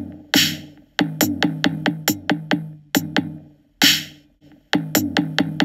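Background music: an electronic drum-machine beat over a bass line, with a hissing cymbal-like crash at the start and again just before four seconds, and short breaks in the beat.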